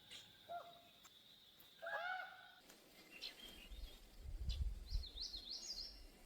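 Wild songbirds calling and singing, faint: a long thin high whistle, a few arched lower notes about two seconds in, and a quick run of high warbled notes near the end. A brief low rumble sits under the middle.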